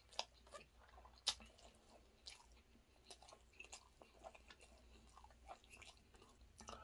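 Quiet mouth sounds of eating chicken biryani by hand: chewing and licking the rice off the fingers, with scattered soft wet smacks and two sharper clicks in the first second and a half.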